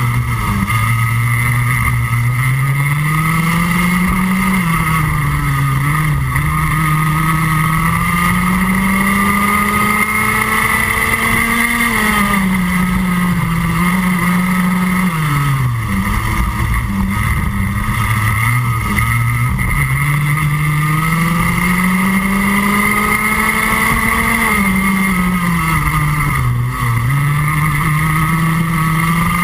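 Rotax Max Junior 125cc single-cylinder two-stroke kart engine at racing speed, heard onboard. Its note climbs steadily along the straights and drops sharply as the throttle is lifted for the corners, several times.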